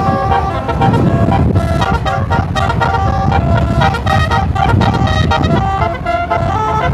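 Bus telolet horn, a set of musical air horns, playing a tune as a rapid run of short stepped notes sounding several at a time, over a low rumble.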